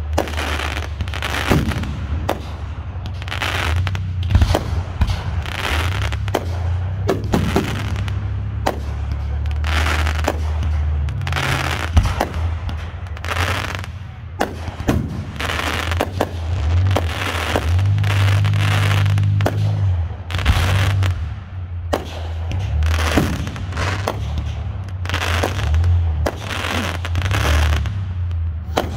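Aerial firework shells bursting in a steady string of sharp bangs, about one or two a second.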